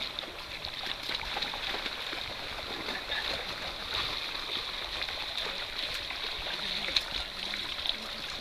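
Shallow stream water running steadily over bedrock, with small splashes from people wading and working a seine net in it.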